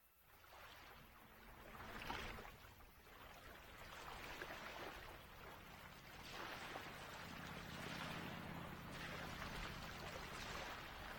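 Faint rushing hiss that swells and fades several times, over a low steady hum.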